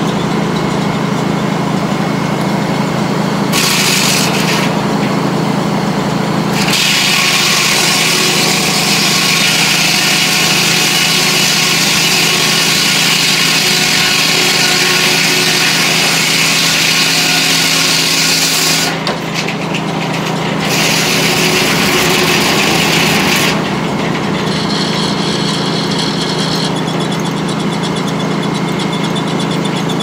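Sawmill's large circular head saw ripping through a log. The loud cutting hiss starts about seven seconds in, eases briefly near the middle and stops about twenty-three seconds in. Under it the mill runs with a steady drone.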